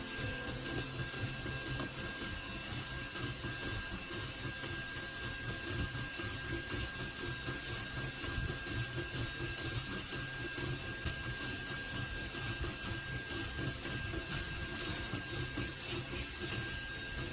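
Steady mechanical buzz with a fast, fluttering rhythm and a constant high whine over it.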